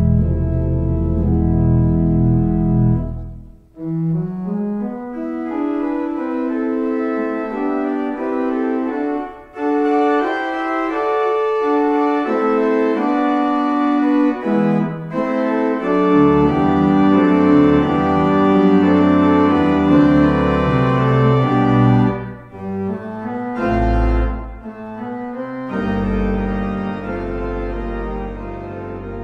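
Hauptwerk virtual pipe organ on a Wersi Sonic OAX, recorded straight from the instrument, playing a demo piece. Full held chords over deep pedal bass break off briefly about three and a half seconds in. Lines of sustained notes follow, and the deep pedal comes back about halfway through.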